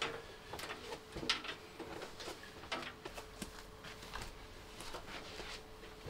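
Faint, irregular clicks and light knocks of hard objects being handled and set down, over a faint steady hum.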